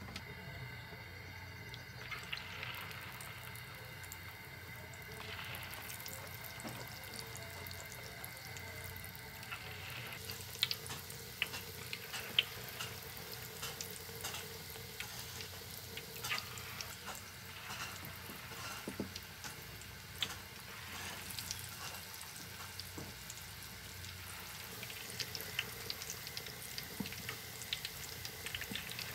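Battered carrot slices frying in a wok of hot oil, a steady sizzle with many small crackling pops. The pops become much more frequent about a third of the way in, as more slices go into the oil.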